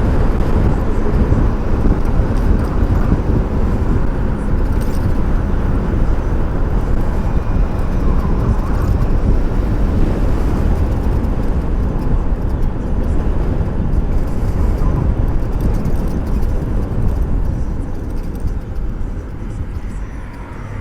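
Steady wind and road rumble on a helmet-mounted microphone, easing a little near the end.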